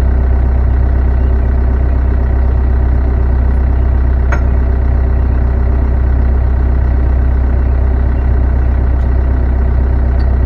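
An engine idling steadily, with one short sharp click about four seconds in.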